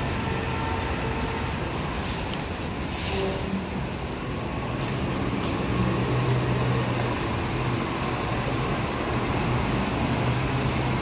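Steady rumble and hum of New York City Subway trains at an elevated station, with a few sharp high clicks about two to five seconds in.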